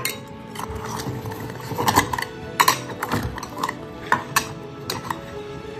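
Stainless steel cat food bowls clinking and knocking against a wooden table as several cats eat from them, with a handful of sharp metallic clinks.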